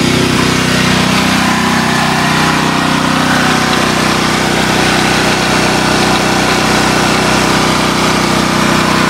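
Sportsman 4000LP propane generator's four-stroke engine running at a steady, unchanging speed.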